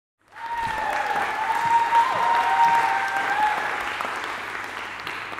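Audience clapping and cheering, starting suddenly, with one long high cheer over it; the applause dies down toward the end.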